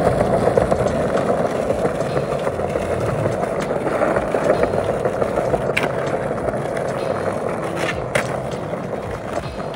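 Skateboard wheels rolling steadily over stone paving tiles through a tail manual into a nose manual and a shove-it out, with a few sharp clacks of the board striking the ground in the second half.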